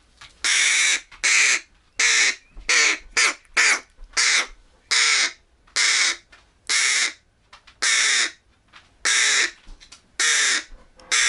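Fledgling crow giving repeated begging calls, one or two short cries a second, with its beak gaping for food: the sound of a hungry young crow asking to be fed.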